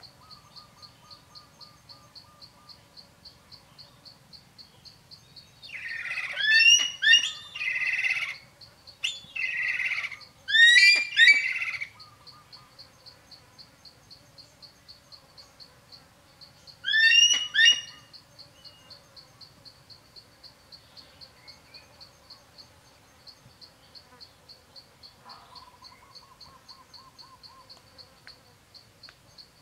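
Greater spotted eagle calling: three bouts of quick, high, rising-and-falling call notes, about six, ten and seventeen seconds in. Under them an insect chirps steadily, about four pulses a second.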